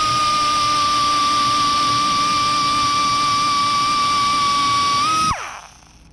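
Die grinder running at a steady high whine while grinding down worn twine grooves in baler parts. About five seconds in it is released and spins down, its pitch falling away.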